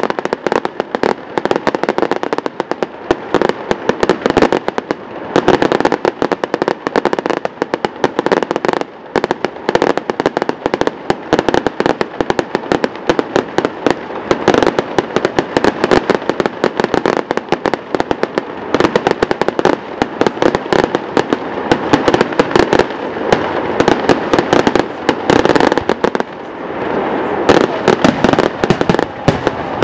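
Fireworks display: a dense, continuous barrage of shell bursts and crackling, with many sharp bangs every second.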